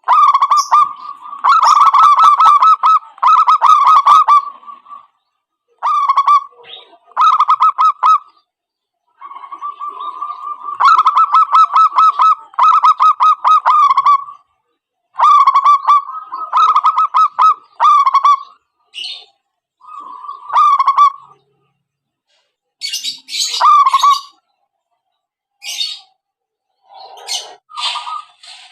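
Zebra doves (perkutut) calling in fast, trilled coo phrases, repeated in bursts of one to four seconds with short pauses between, the busy, lively calling used to lure wild doves.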